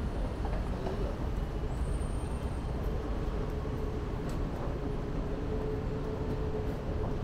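City street ambience: a steady rumble of traffic, with a steady hum joining in about three seconds in.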